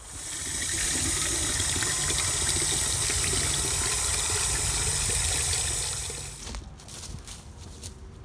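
Water gushing from an outdoor spigot into a plastic watering can, steady for about six seconds before it fades out. A few light knocks follow near the end.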